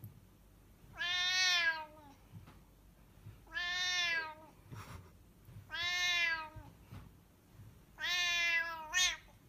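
A colour-point cat meowing four times in long, drawn-out calls about two and a half seconds apart, each sagging in pitch at the end.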